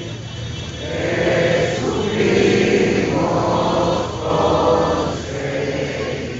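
A large crowd singing together in unison, in several held phrases a second or two long, one after another, over the murmur of the crowd.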